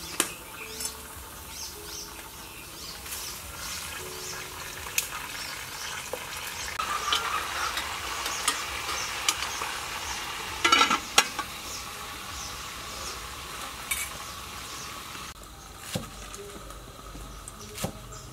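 Food sizzling in a covered pot on a wok, with metal pot-lid clinks and a clattering clank of the lid about eleven seconds in. Near the end, a cleaver knocks a few times on a wooden chopping board.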